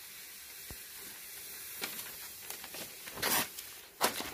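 Handling noise: steady hiss with a short rustle about three seconds in and a sharper rasp just after four seconds, as a knife and a sheet of paper are picked up from a stone table.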